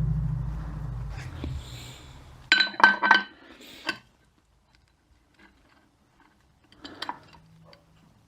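Metal transmission parts clinking against each other as they are handled, three quick ringing chinks about two and a half seconds in and another near seven seconds. A low engine hum fades away over the first two seconds.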